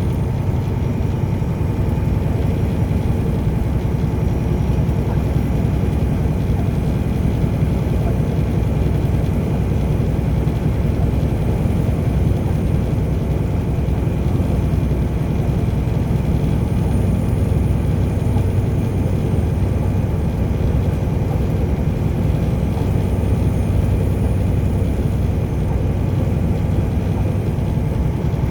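A car driving, with steady engine and road noise in an even low rumble.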